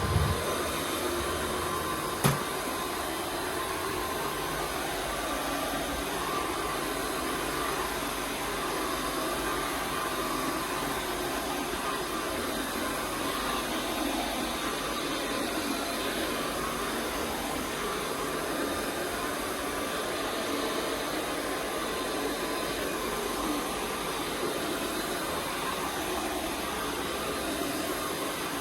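Carpet-cleaning vacuum machine running steadily, a constant rushing whine of suction, with two short knocks in the first few seconds.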